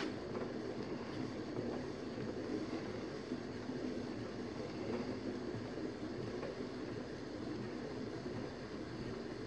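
Electric potter's wheel running steadily, with a trimming tool scraping the foot of a leather-hard clay bowl as it turns.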